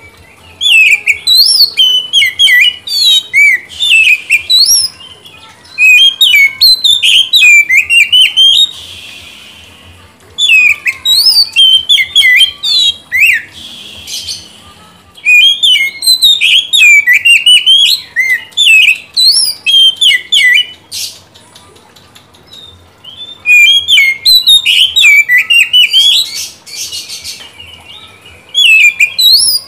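Oriental magpie-robin (kacer) singing: loud phrases of rapid, varied whistled notes and sweeping trills, each a few seconds long, with short pauses between them.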